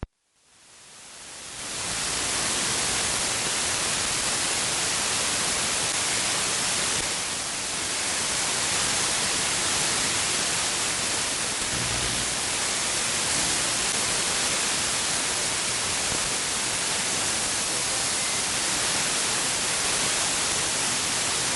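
Radio receiver static: a steady hiss of band noise with no signal on the channel, swelling up from near silence over the first two seconds.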